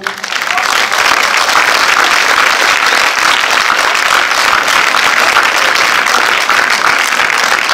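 Audience applauding in a cinema hall: dense, steady clapping that swells up within the first half second.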